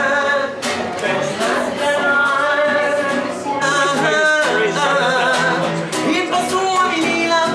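Music with a solo singing voice, the melody wavering and bending in long held notes over a steady accompaniment.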